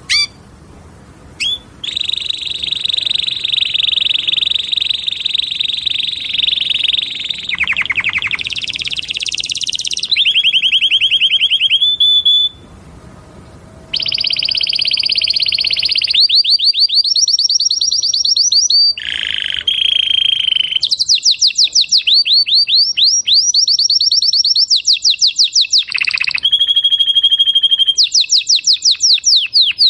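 Canary singing loudly: long rolls held on one high pitch, alternating with fast runs of rapidly repeated falling notes, with a brief break about twelve seconds in.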